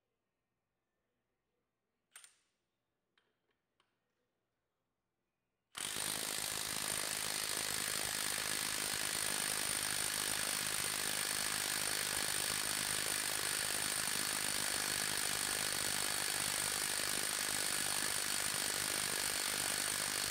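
A faint click about two seconds in, then a Milwaukee 2962-20 M18 FUEL 1/2-inch cordless impact wrench hammering steadily on a torque-tester bolt through a 1/2 to 3/4 inch drive adapter. It starts abruptly about six seconds in and stops abruptly just before the end.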